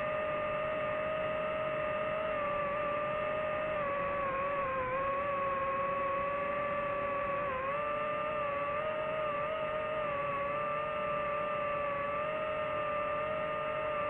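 Quadcopter drone's motors and propellers giving a steady high whine that wavers slightly, with a couple of brief dips in pitch as the drone adjusts its flight.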